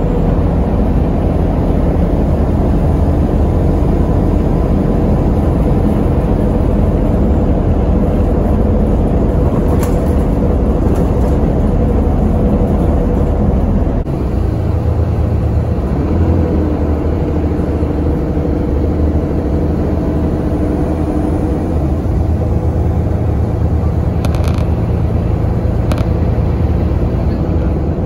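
Inside a bus at motorway speed: steady engine drone with tyre and road rumble. About halfway through, the low rumble shifts and briefly dips.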